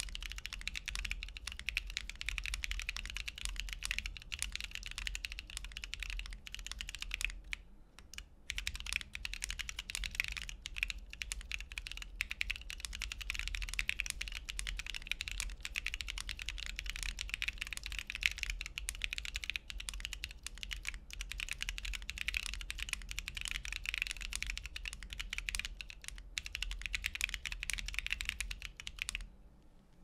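Continuous typing on a Bolsalice Alice-layout custom mechanical keyboard with lubed Corsa tactile switches, a full aluminium plate and NicePBT Vasilisa PBT keycaps: a dense run of keystroke clacks. There is a brief pause about eight seconds in, and the typing stops just before the end.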